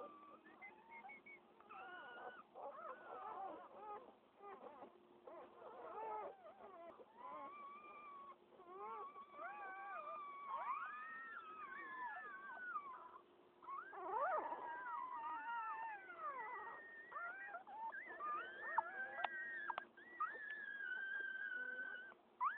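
A litter of newborn pit bull puppies squealing and whining, many high-pitched cries overlapping, each one rising and falling in pitch.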